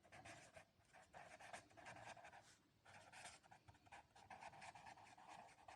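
Near silence, with faint, irregular scratching.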